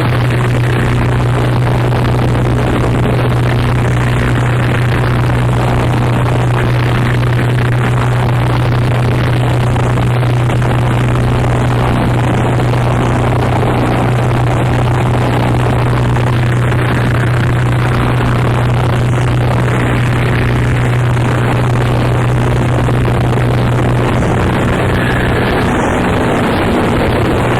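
Harsh noise music from a cassette: a dense, unbroken wall of distorted noise over a loud, steady low drone, holding the same level throughout.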